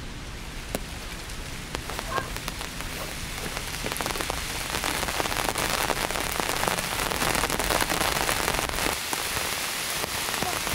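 Rain starting to fall: scattered separate drops ticking at first, building over the first several seconds into a steady, heavier rain hiss.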